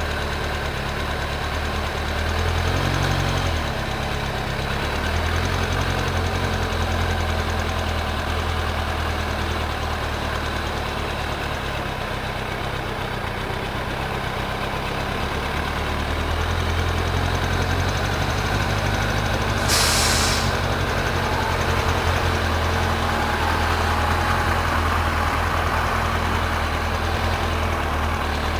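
An engine running steadily at idle, with a short burst of hiss about twenty seconds in.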